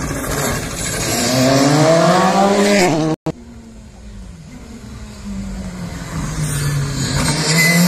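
Rally car engine revving hard as the car approaches, its pitch climbing, breaking off suddenly about three seconds in. A second rally car is then heard coming up, its engine getting louder and rising in pitch toward the end.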